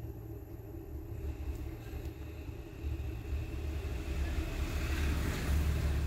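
A low background rumble, swelling about three seconds in and again near the end, with a faint hiss rising alongside it.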